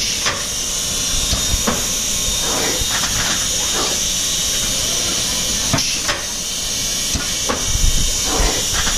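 Thermoforming line running while its leftover plastic web winds onto a scrap roll: a steady high hiss of machinery, with scattered sharp clicks and crackles.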